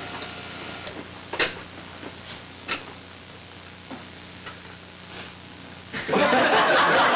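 Quiet room with a low steady hum and a couple of small clicks, then about six seconds in a group of people suddenly bursts into laughter.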